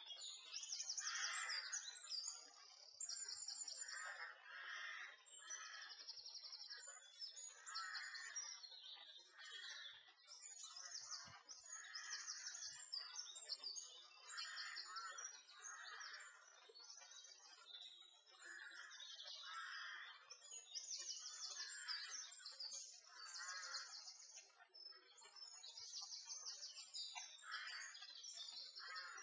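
Songbirds singing: several birds overlap, with short, high, fast-repeating trills and chirps every second or two and lower warbling phrases in between.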